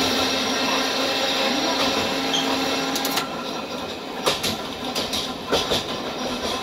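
Hankai Tramway streetcar running, heard from inside the car: a steady hum and rolling noise that drops off about halfway through, after which the tram rolls on with several sharp knocks from the wheels on the track.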